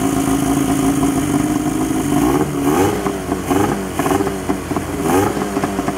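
Outboard motor running steadily after starting, the fault that kept it from cranking now fixed.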